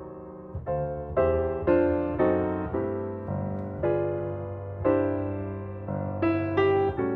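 Background piano music: chords struck one after another, each fading before the next.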